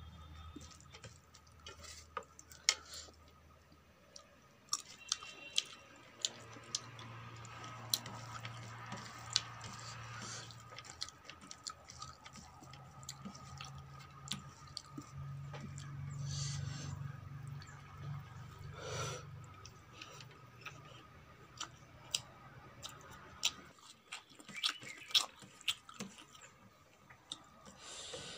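Close-miked eating sounds: wet chewing of rice and greens, with fingers working the rice against a steel plate. Sharp clicks are scattered throughout.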